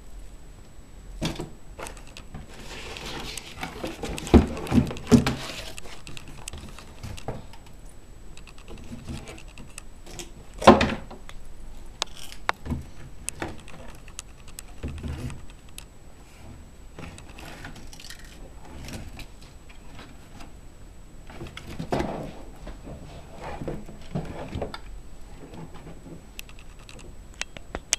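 Handling noise from unboxing a PC power supply: its bundled cables and plastic connectors clicking and rustling against each other and the cardboard box, with a few knocks as the unit is moved, the loudest about eleven seconds in.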